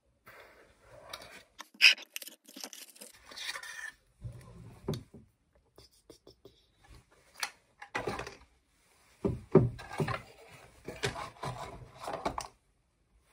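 Rustling and scraping of cosmetics packaging being handled at a table, broken by several sharp clicks and knocks, with stretches of quiet between.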